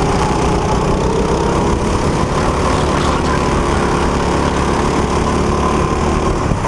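Go-kart's small engine running steadily at racing speed, heard close up from the driver's seat.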